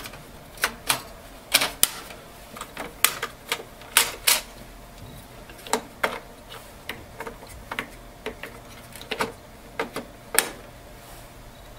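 Irregular sharp plastic clicks and snaps as the feed rollers of a Brother ADS-3000N document scanner are handled, popped out and fitted back into their holder inside the opened scanner.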